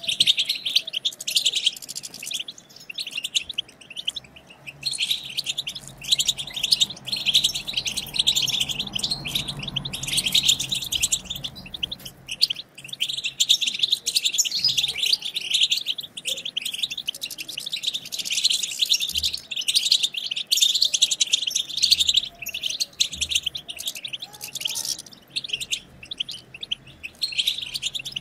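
European goldfinch twittering, the chatter that keepers call 'batbata': a fast, near-continuous run of high tinkling chirps and trills, broken by a few short pauses.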